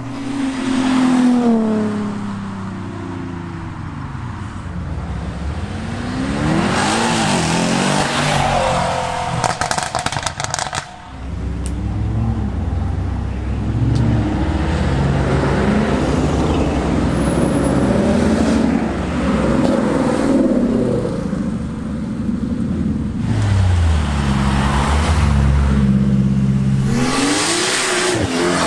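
Several performance cars accelerating and revving as they drive past, their engine pitch climbing and dropping with each pull and pass. A steadier low engine rumble fills the middle stretch.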